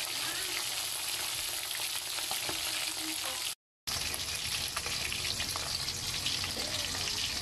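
Whole roundscad fish frying in hot oil in a pan: a steady crackling sizzle, broken by a brief silent gap about halfway through.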